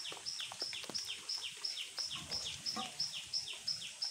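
High chirping call repeated steadily about three times a second, each a short high note that sweeps down in pitch, over light scattered taps of rain.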